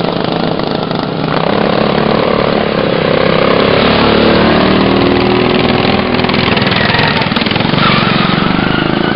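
Racing lawnmower engines running hard, their pitch rising and falling as they rev.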